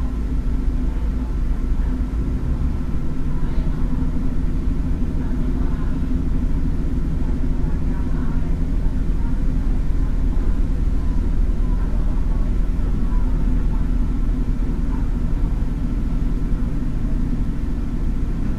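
Diesel multiple-unit railcar of the Taiwan Railways DRC1000 series, its underfloor diesel engine running under power as the train pulls away from a stop and gathers speed. It is heard from inside the car as a steady low rumble.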